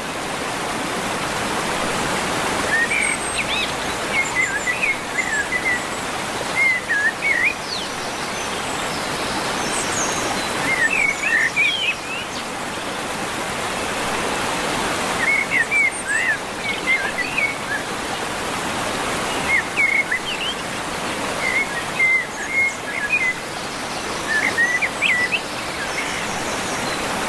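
Birds singing in short chirping phrases that recur every three to four seconds over a steady rushing noise like running water.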